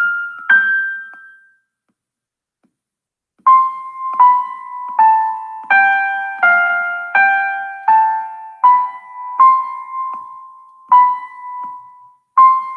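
A simple melody in a piano sound, played back from a Soundtrap recording, one note at a time. One note sounds near the start, then after about two seconds of silence a steady run of about a dozen notes follows, roughly one and a half a second.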